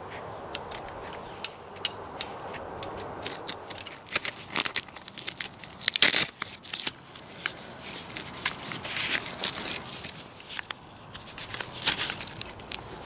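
Tent fabric rustling and crinkling as it is handled, with sharp clicks and knocks of a metal tent pole against its strap and fittings, loudest about six seconds in.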